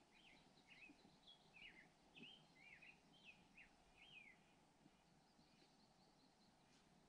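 A bird calling faintly in a forest: a quick run of short chirps that sweep up and down in pitch, stopping about four seconds in and leaving near silence.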